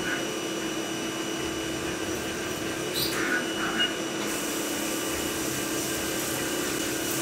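CNC mill spindle running with a steady whine while an 8 mm stub drill cuts holes in 6082 aluminium plate, with a few short cutting noises about three seconds in. From about four seconds in, a hiss of flood coolant spraying onto the part joins in.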